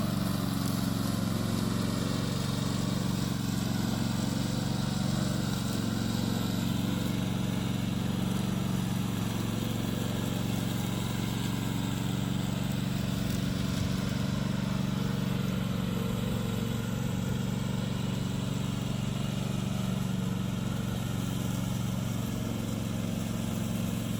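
Remote-control tracked lawn mower's Loncin 9 hp petrol engine running steadily at a constant speed, holding an even pitch throughout.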